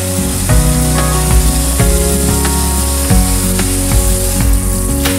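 Tap water running in a steady hiss into a stainless steel kitchen sink as hands are rinsed under it, over background music with held chords and a deep bass line that changes every second or so.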